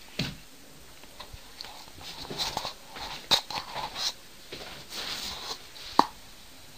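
Scattered sharp knocks and light taps with rustling in a small room. The loudest knock comes near the end.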